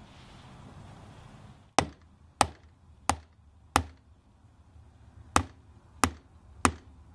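Ball-peen hammer striking a 6-inch drill bit, driving it into the tread of a car tyre: four sharp blows about two-thirds of a second apart, a short pause, then three more.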